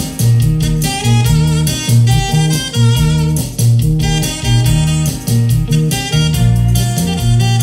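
Instrumental passage of a song: plucked guitar lines over a steady bass and beat, with no singing.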